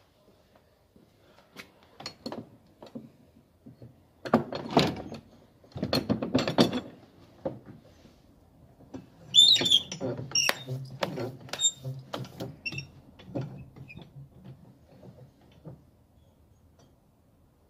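The iron swing-bar latch of an old wooden double door being lifted and worked by hand: a series of knocks and rattles, the loudest clatter about four to seven seconds in, then metal clinks with short ringing notes around ten to thirteen seconds in.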